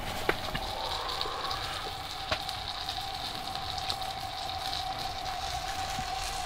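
Propane camp stove burner hissing steadily with a faint steady hum, and a few light clicks.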